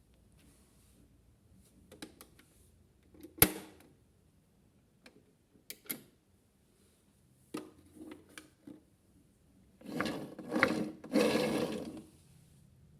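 Scattered sharp clicks and knocks from a plastic toy washing machine being handled, one much louder than the rest, then three short rough scraping noises near the end.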